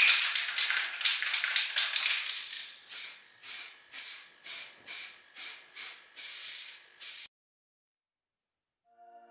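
Aerosol can of etch primer being shaken with a rattly hiss, then sprayed in short hissing bursts about two a second and one longer spray, before the sound stops suddenly about seven seconds in.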